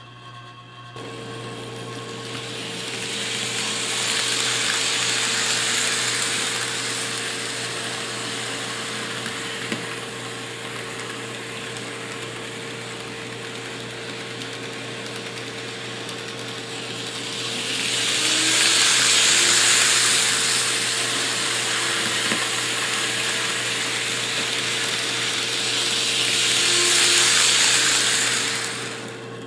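N scale model trains running on the track: small electric motors whirring and wheels rolling on the rails, swelling three times as trains pass close by, loudest about two-thirds of the way through. A steady hum sets in about a second in.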